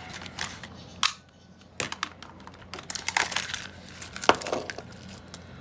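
Sharp metallic clinks and taps of a Bunkerhill disc padlock and its keys being handled while it is unpacked, several separate strikes about a second apart with rustling between.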